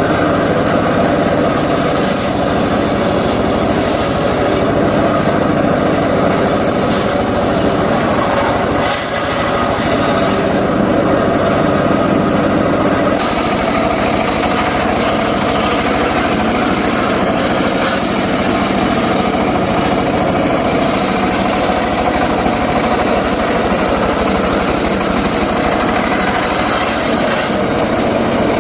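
Engine of a homemade circular saw rig running steadily under way, its high-pitched noise shifting slightly a few times.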